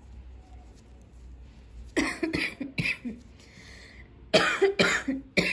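A person coughing in two short fits of about three coughs each, the first fit about two seconds in and the second a little past four seconds.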